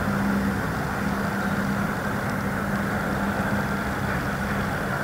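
Steady drone of an idling engine with a constant low hum, unchanging throughout.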